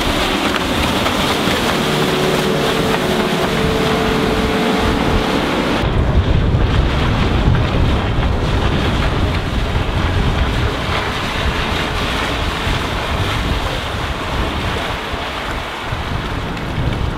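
Strong wind noise on the microphone over choppy water, with the faint whine of a RIB's Suzuki 140 hp four-stroke outboard running on the water in the first few seconds. About six seconds in, the sound changes abruptly to a deeper wind rumble with less hiss.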